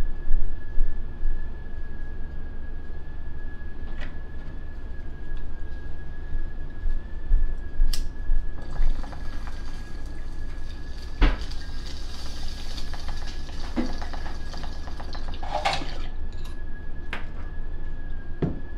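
Water bubbling in a glass bong as smoke is drawn through it, starting about halfway in and lasting several seconds, with a few sharp clicks from the lighter. A faint steady high tone runs underneath.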